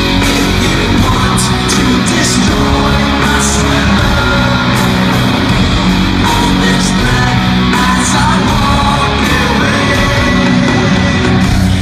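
Loud rock music with guitar and a singing, shouting vocal.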